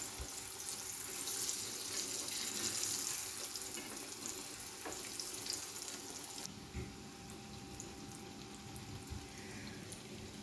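Battered egg pieces deep-frying in hot oil in a nonstick pan: a steady sizzle, louder in the first few seconds and easing after about six seconds, with a couple of light knocks.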